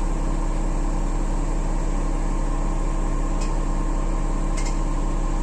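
Steady mechanical hum of an engine running at a constant speed, with a couple of faint ticks.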